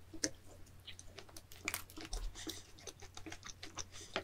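Faint chewing of bread: a scatter of small, irregular mouth clicks.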